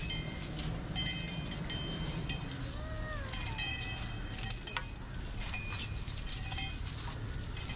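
Irregular metallic clinking and jangling from the leg chains of a line of caparisoned Asian elephants as they walk, over a steady low rumble. A short call that rises then falls in pitch is heard about three seconds in.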